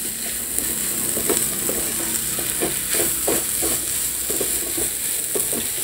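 Minced mutton sizzling as it is fried in a non-stick frying pan, with a spatula scraping and stirring it around the pan in many quick, uneven strokes. The keema is being browned well over a medium flame.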